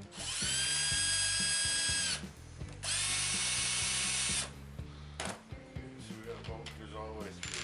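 Cordless drill/driver run in two bursts. The first is a whine that spins up and holds for about two seconds. The second, about a second later, is a noisier burst of about a second and a half.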